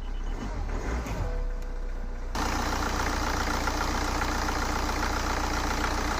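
BMW 318d's N47 four-cylinder diesel engine idling just after starting; the sound suddenly gets louder and brighter about two seconds in, then holds steady.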